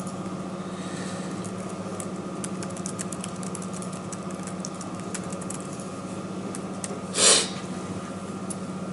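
Typing on a computer keyboard: a run of light key clicks over a steady low hum, as a short reply is typed out. About seven seconds in, a short loud rush of noise stands out above the typing.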